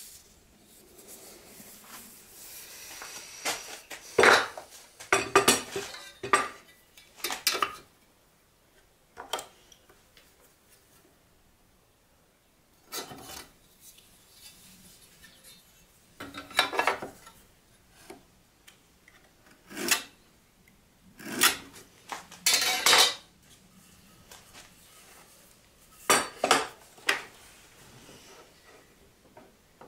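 Workshop handling noise: irregular clusters of metallic clinks, knocks and scrapes as tools and wood pieces are picked up and set down on a workbench, with quiet gaps of a few seconds between them.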